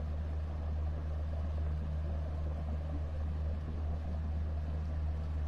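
Tour boat's engine running steadily under way, a constant low drone with water and air noise over it.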